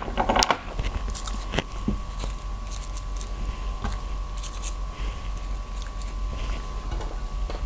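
Small handling sounds of food preparation: a light ceramic bowl knocked down onto the table with a few clicks, then soft ticks and rustles of fingers picking up greens and building a lettuce wrap. A steady thin hum runs underneath.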